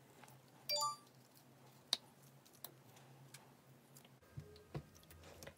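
Sticky pink slime being squeezed and pulled apart by hand: a brief squeak just under a second in, then faint, scattered sticky clicks and pops.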